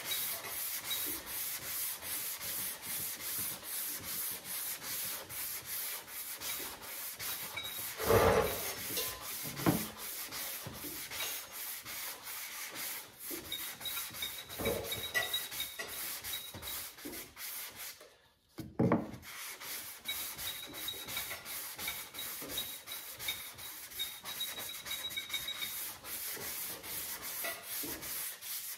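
320-grit sandpaper rubbing over high-build primer on a truck body panel in rapid, even back-and-forth strokes during finish sanding. The sanding stops briefly about two-thirds of the way through, with a knock just before and after.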